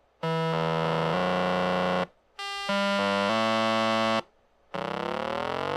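A 555 timer sound-generator board under Arduino control makes buzzy square-wave tones. Sub-octave channels are switched in one after another, so the tones step down to lower pitches. The sound cuts out twice briefly, then near the end the pitch slides upward.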